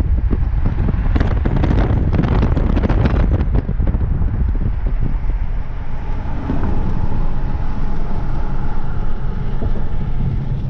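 A car driving at highway speed, heard from inside the cabin: a steady low rumble of engine and tyres on the road. Gusts of wind buffet the microphone for a few seconds near the start.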